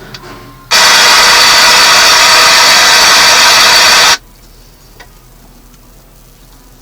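Loud hiss of static from a newly wired Jensen heavy-duty radio speaker. It switches on abruptly about a second in and cuts off just as suddenly about three and a half seconds later. The speaker is now making sound.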